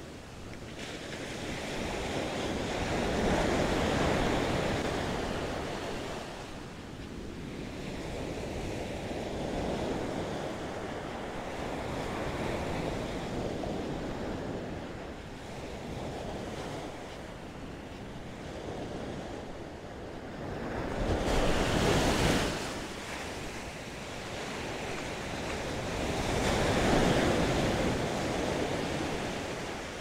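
Ocean surf washing onto a sandy beach, rising and falling in long swells as waves break, the strongest ones about three-quarters of the way through and near the end.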